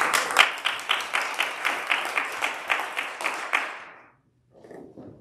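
Audience applauding, with claps landing in a steady beat about four times a second. It dies away about four seconds in.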